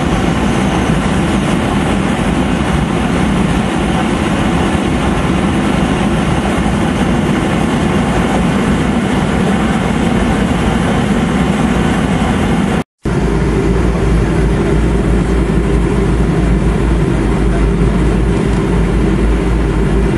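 Steady loud cabin roar inside a Boeing 707 in flight, from its jet engines and the airflow. About 13 seconds in, the sound drops out for a moment at a cut, and then runs on with a deeper, stronger low drone.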